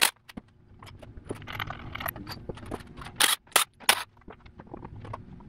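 Cordless impact driver working the bolts of a Subaru EJ25 timing-belt cover, in three short bursts a little past the middle, amid light metallic clicks and clatter of tools and parts.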